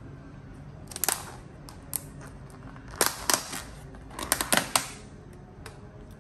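Thin clear plastic takeaway container clicking and crackling as it is handled and shifted, with a metal fork and spoon in hand. The sharp snaps come about a second in, in a cluster around three seconds and again around four and a half seconds.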